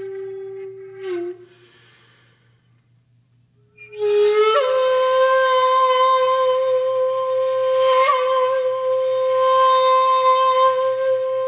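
Slow music on a flute-like wind instrument: a long note that ends about a second in, a gap of near silence, then a new note that slides up and is held to the end, wavering in pitch near the end.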